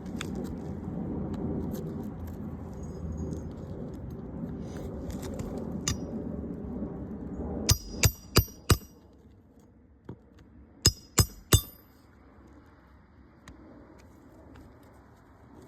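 Rustling handling noise, then a hammer striking metal with ringing blows: four quick strikes, a short pause, then three more, as in nailing or prying during a roof shingle repair.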